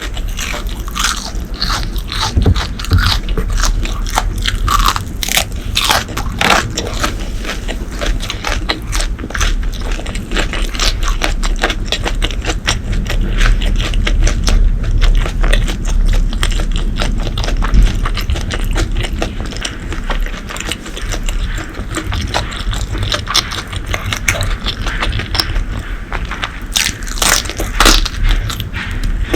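Close-miked eating: continuous chewing and crunching, a dense run of small crackles and clicks.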